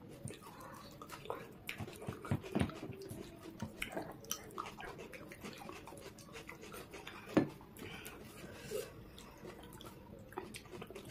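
Two people eating pav bhaji with their fingers: chewing and mouth sounds, with fingers scraping food across ceramic plates. It comes as a scatter of small soft clicks, with one sharper click about seven seconds in.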